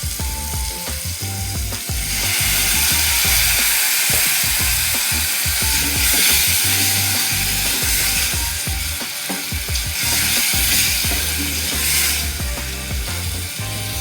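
Onion, tomato and ginger-garlic paste sizzling hard in hot oil in a pan after a splash of water, the hiss swelling about two seconds in. Repeated clicks and scrapes run under it.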